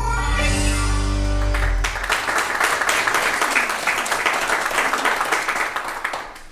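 The last held chord of a gospel song with bass accompaniment, ending about two seconds in. A congregation then applauds for about four seconds and dies away near the end.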